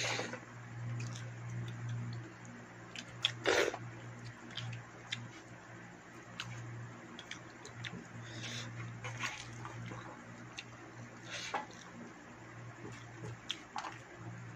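Someone eating rice by hand from a steel plate: chewing and mouth smacks, and fingers mixing and scraping rice on the plate, with a few louder short smacks. A low steady hum runs underneath.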